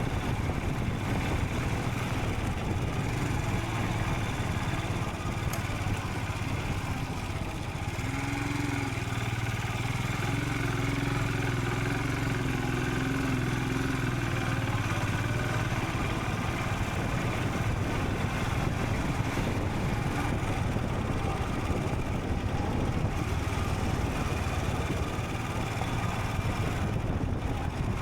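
Royal Enfield Scram 440's single-cylinder engine running steadily under way. A higher humming tone rides over it for several seconds in the middle.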